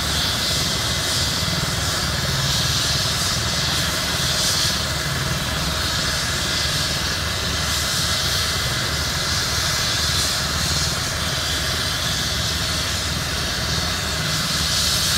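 Air ambulance helicopter running on the ground with its main rotor turning: a steady turbine whine over the continuous rush of the rotor.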